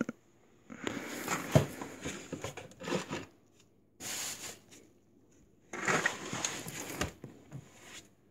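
Rustling, crinkling handling noise in three bursts, the first and last each about two seconds long, with a few light clicks mixed in.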